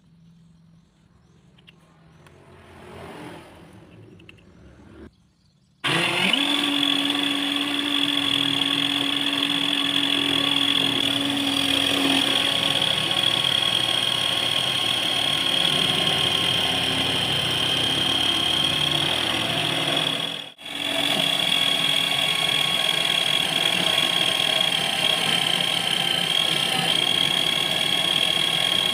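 Small motor-driven lathe spinning a plastic disc in a drill chuck while a cutting tool shaves it: a steady high motor whine over a scraping hiss. It starts suddenly about six seconds in, after quiet handling of the parts, and drops out briefly once near twenty seconds.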